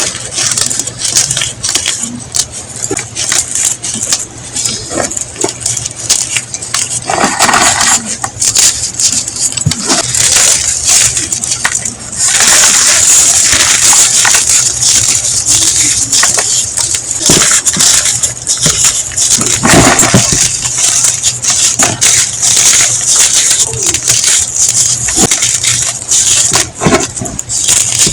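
Blocks of gym chalk being crumbled and crushed by hand: a crisp, dense crackle of many small clicks, growing louder and denser about twelve seconds in.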